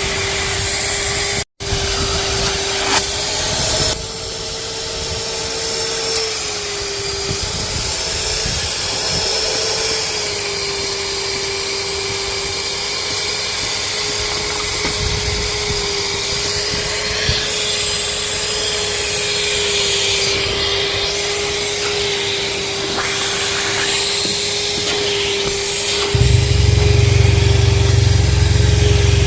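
Vacuum cleaner running steadily with a constant motor whine that wavers slightly in pitch, cutting out for an instant about a second and a half in. Near the end a deep low hum starts up and runs alongside it.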